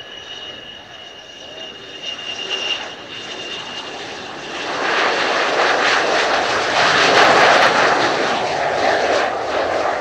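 F-4EJ Kai Phantom II's twin J79 turbojets landing: a steady high-pitched whine at first, then from about five seconds in a loud rushing jet noise as the fighter passes close, loudest a couple of seconds later.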